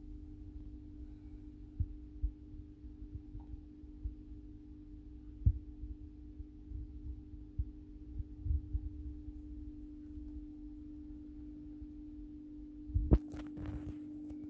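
A steady low hum, with soft low bumps scattered through and a short burst of rubbing and knocking about thirteen seconds in.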